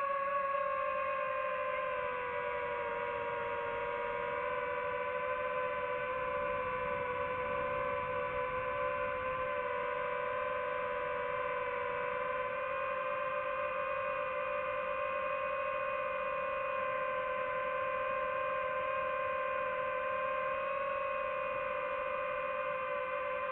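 Quadcopter motors and propellers of a DJI FPV drone whining steadily in flight, the pitch dipping slightly a few seconds in and rising a little near the end.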